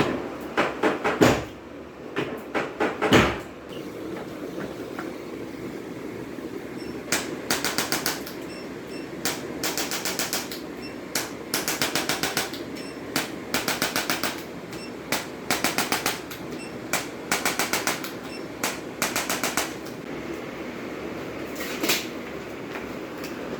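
Short bursts of rapid mechanical clicking, each about a second long, repeated every second or two over a steady fan-like hum; a few louder knocks come in the first three seconds.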